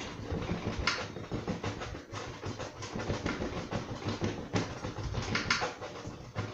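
Cloth rag rubbing and wiping across a wet oil-painted canvas in short, irregular scrubbing strokes.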